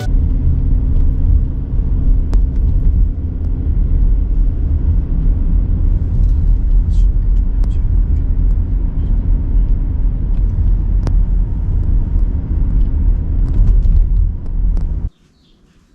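Nissan X-Trail (T32) on the move: a steady, loud low rumble of engine and road noise, with a few faint clicks. It cuts off suddenly about a second before the end.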